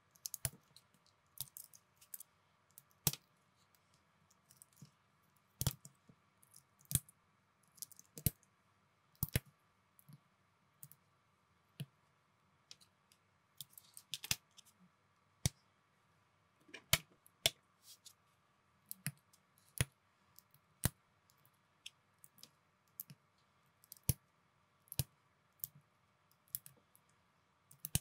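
Small plastic building bricks being snapped together and handled by hand: sharp, irregular clicks and light rattles, a few every second, some louder than others.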